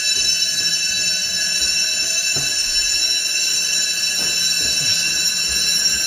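Building fire alarm bells ringing loudly and without a break during a fire alarm test.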